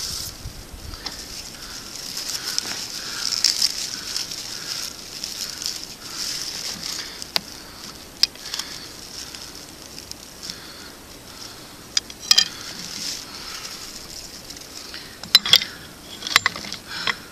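Dry grass tinder bundle rustling and crackling as it is handled to take a friction-fire ember, over a steady hiss. Sharp crackles come about halfway through and again near the end, the loudest of them.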